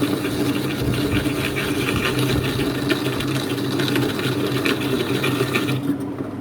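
Meenakshi 'Cutipie' small wet grinder's electric motor running with a steady hum while a coconut half is pressed on its spinning coconut-scraper attachment, giving a rasping, crackling scrape. The scraping stops about six seconds in while the motor keeps humming.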